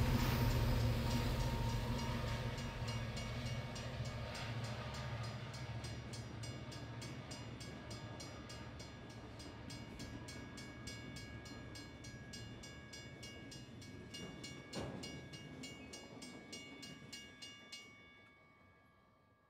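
A train rumbling past a railroad grade crossing, the rumble dying away as it recedes. The crossing signal's bell rings in quick, even strokes throughout. All of it fades out near the end.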